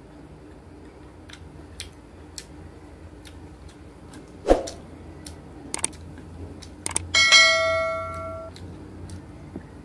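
Subscribe-button animation sound effect: a short sharp pop with a falling pitch about halfway through, a couple of sharp clicks, then a bell ding that rings out for over a second. A few faint ticks come before it.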